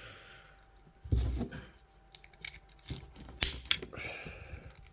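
Small plastic action-figure parts being handled and fitted together: scattered light clicks and rustling, a soft bump about a second in, and two sharp plastic clicks about three and a half seconds in.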